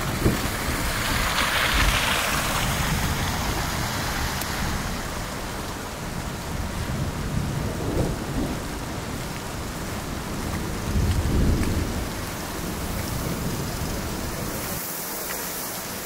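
City street ambience in a heavy snowstorm: a steady hiss of wind and traffic on wet, slushy streets. A brighter swell of hiss comes about two seconds in, and deep rumbles come at about eight and eleven seconds, the later one the loudest.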